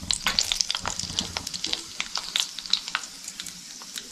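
Mustard seeds crackling in hot oil in a kadhai, many short, irregular pops over a faint sizzle: the seeds are spluttering as the tempering (phodni) starts.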